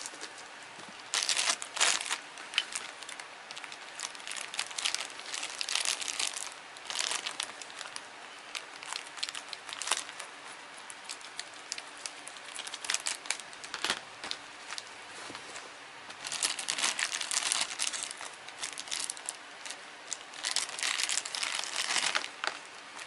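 Thin clear plastic bag of small toy parts crinkling and rustling in several bursts as it is handled and cut open with scissors.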